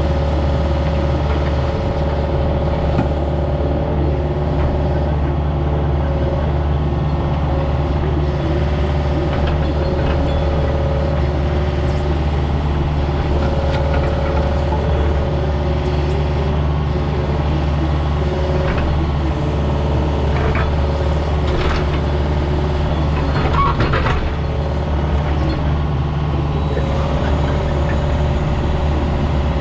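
Diesel engine of a piece of earthmoving equipment running steadily, with a few short knocks and clatters about two-thirds of the way through.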